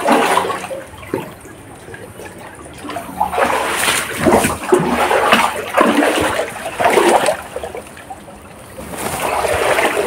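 River water splashing and sloshing in repeated bursts, with short quieter pauses, as someone scoops and wades about catching small shrimp.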